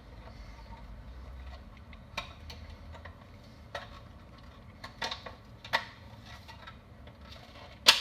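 Plastic parts of an access point's desktop stand being handled and fitted, with a few sharp clicks and taps spread out, the loudest a snap near the end.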